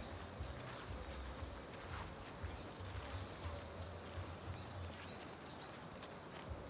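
Crickets chirring steadily in a high, even band, with soft, irregular low thuds of footsteps on grass.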